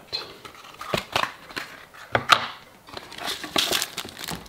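Cardboard box trays and paper inserts being handled and pulled apart: a string of irregular rustles, scrapes and light knocks.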